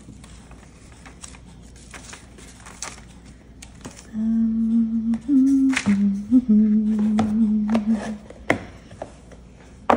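Someone humming a short tune of a few held notes, rising and falling, for about four seconds in the middle. Soft taps and paper-handling clicks from cards and craft supplies are heard around it.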